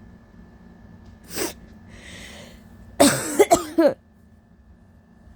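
A woman's wet, scratchy coughing fit: a burst of about four coughs in quick succession about three seconds in, with two fainter breathy sounds before it. The cough comes from a sore throat and allergies.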